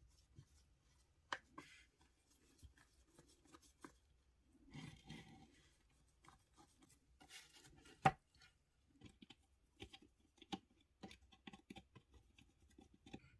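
Quiet hand work on a model car: scattered small clicks and taps with brief scraping and rubbing, and one sharper click about eight seconds in.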